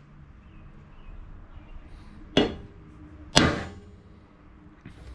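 Center punch striking the cast iron brake rotor through a paper template, marking hole centers for drilling: two sharp metallic snaps about a second apart.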